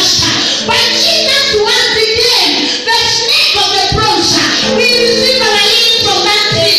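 A woman singing a worship song into a handheld microphone, loud and continuous.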